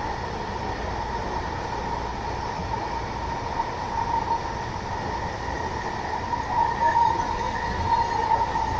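Vancouver SkyTrain car running along the track, heard from inside: a steady rumble with a steady whine.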